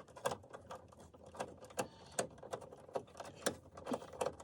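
Irregular sharp clicks and taps of hard plastic being handled: an instrument cluster and its dash trim being worked loose or fitted, with clips knocking. The clicks come unevenly, roughly one or two a second.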